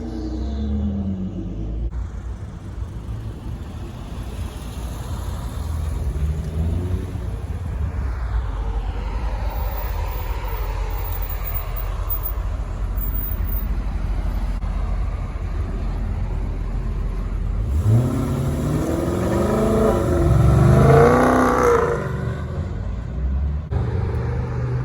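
Muscle-car V8 engines rumbling at low revs, with a louder rev rising and falling near the end.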